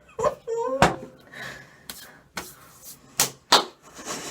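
Several sharp knocks or smacks, with a brief wordless vocal sound near the start.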